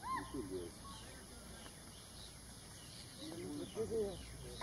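Outdoor ambience: faint bird chirps throughout, and two brief bursts of distant human voices, one at the start and one near the end.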